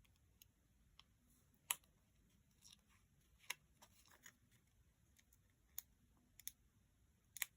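Near silence broken by a handful of faint, sharp paper ticks and clicks. These come from embossed paper die cuts being handled and picked at to see whether they peel off as stickers.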